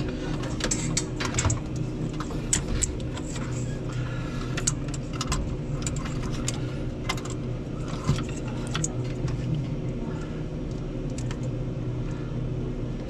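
Scattered metallic clicks, clinks and rattles of parts or tools being handled, over a steady low hum.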